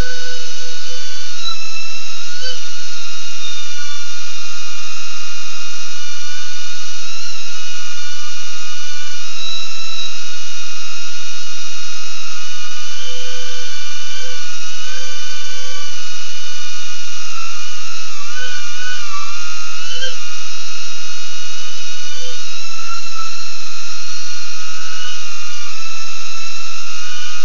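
BetaFPV Aquila16 FPV quadcopter's motors whining steadily in flight, with the pitch dipping and rising a little now and then as the throttle changes.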